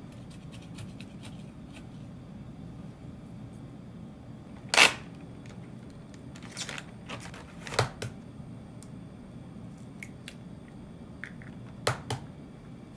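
Kitchen handling sounds on a counter: one hard knock about five seconds in, then scattered clicks and taps as an enamel bowl and eggs are handled and an egg is cracked into the bowl. A low steady hum lies underneath.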